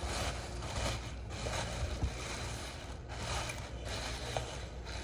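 Noodles being stirred together with shrimp and sauce: soft scraping and rustling with a few faint clicks over a steady low hum.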